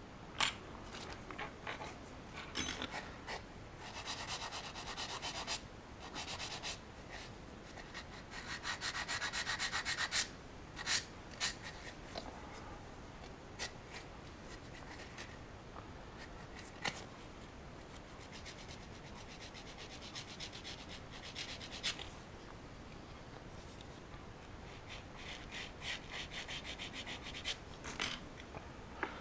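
Hand sanding a cast resin figure part with a small piece of sandpaper to take off mold lines. The sanding comes in spells of quick, short back-and-forth strokes a few seconds long, with a few sharp clicks in between.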